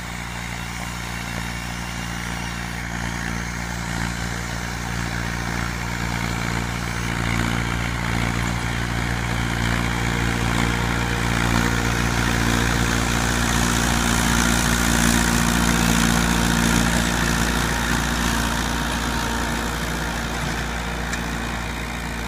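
Steady engine-like drone from a running scale-model tractor pulling a disc harrow through sand: an even low hum that never changes pitch, swelling a little toward the middle and easing near the end.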